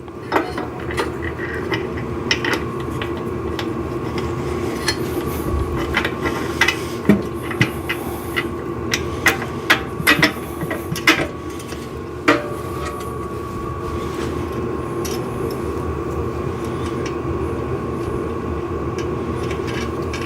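Scattered metal clinks and knocks of tools and steel parts being worked during assembly of a steel exercise machine, stopping about two-thirds of the way through, over a steady hum.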